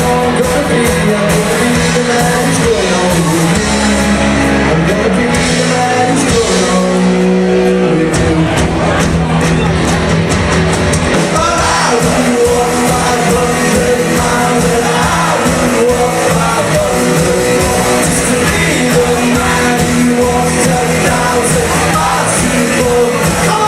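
Live rock covers band playing a song in a large hall: drums, amplified guitars and bass, with a singer.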